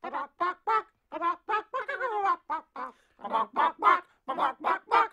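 Chicken-like clucking and squawking in short, rapid calls, about three a second, with a longer falling squawk about two seconds in.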